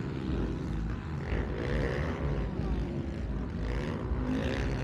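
Motocross dirt bikes racing, their engines revving with the pitch rising and falling as the riders accelerate and back off.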